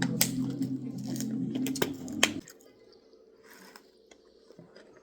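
Eating sounds: a few sharp crunches and clicks, over a low steady drone that cuts off about halfway through, then faint ticks.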